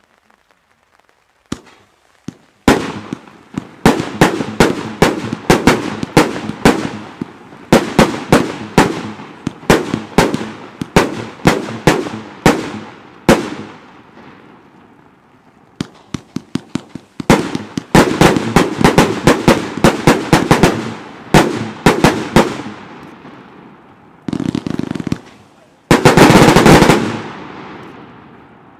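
Gaoo/Röder Hammer Strong Final Verbund, a 60-shot 30 mm firework battery, firing: rapid volleys of sharp, loud bangs from its hard-hitting breaking shells, with a short lull midway. Near the end a dense run of shots merges into one continuous burst that then fades.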